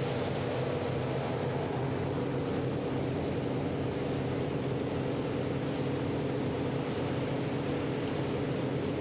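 Steady drone of the 1938 diesel-electric fireboat Firefighter's engines running under way, several low steady tones over a rush of water and wind.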